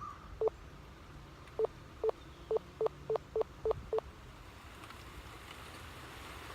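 A series of about nine short electronic beeps, all at the same pitch and spaced unevenly, almost like Morse code. They stop about four seconds in.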